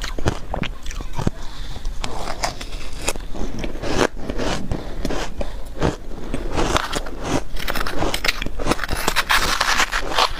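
Close-up biting and chewing of soft shaved ice, with dense, irregular crunching and crackling throughout.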